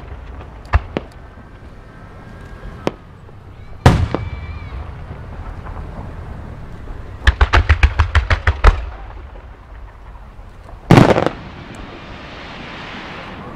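Aerial fireworks shells bursting. A few scattered bangs come first, then a rapid string of about a dozen bangs around the middle. A loud blast near the end is followed by a long crackling fizz from crackling stars.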